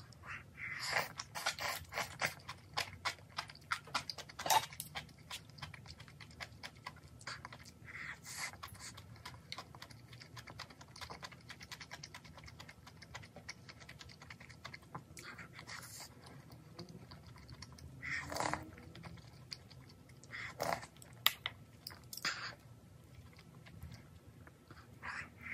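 Close-miked eating sounds: broth sipped and slurped from a small bowl, mouth-close chewing with many fine wet clicks, and a few louder slurps and sips at intervals.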